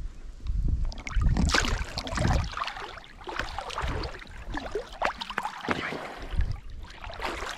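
Water splashing and gurgling around a small boat, coming and going unevenly, with no steady motor tone.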